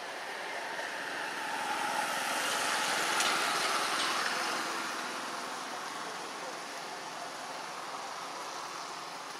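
Steady outdoor background hiss that swells to a peak about three seconds in and then fades back.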